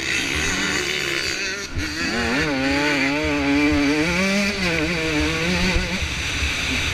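Off-road race motorcycle engine under throttle, its pitch rising and falling rapidly as the throttle is worked over the course, loudest in the middle seconds.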